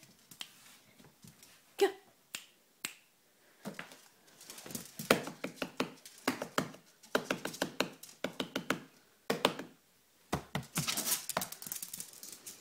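Yorkshire terrier's claws clicking and scrabbling on a hard wood-effect floor, in irregular runs of quick taps.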